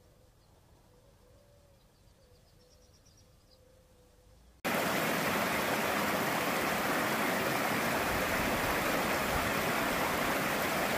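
Faint outdoor quiet with a short run of high bird chirps, then, about halfway in, a sudden cut to the loud, steady rush of a rocky mountain brook tumbling over stones.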